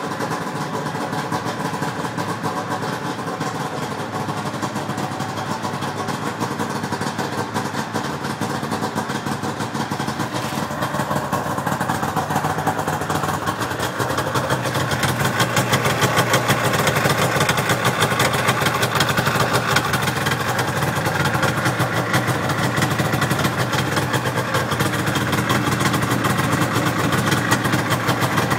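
1998 Arctic Cat Jag 440 snowmobile's two-stroke twin engine idling steadily with a freshly cleaned carburetor, running well. It gets a little louder about halfway through.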